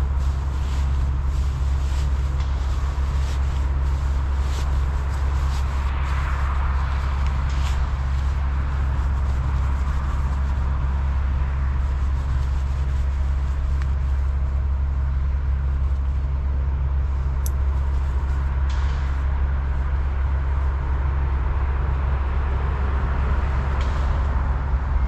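Steady low rumble of road traffic, with a few light clicks and rustles of camping gear being handled in the first several seconds.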